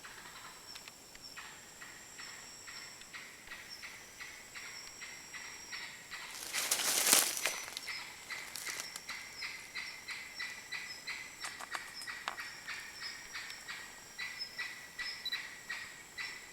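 Night forest chorus: a steady high insect trill with repeated short chirping calls, about two to three a second. About seven seconds in, a loud harsh rasping call rings out for roughly a second.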